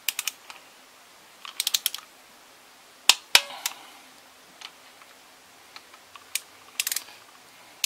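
Ratcheting clicks of a hand driver with an extension and socket, tightening valve cover bolts. Short runs of quick clicks, with two louder sharp clicks about three seconds in.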